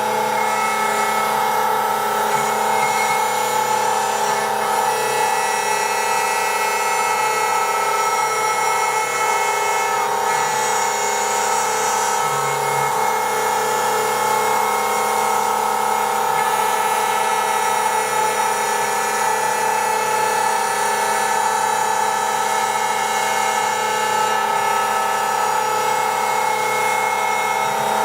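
An electric power tool's motor running steadily and without a break, holding one pitch with a constant whine, while machining the 18 mm board for the side plates.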